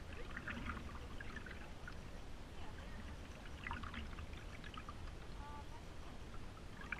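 Light water trickling and dripping around a stand-up paddleboard as it is paddled, with small scattered splashes over a steady low rumble.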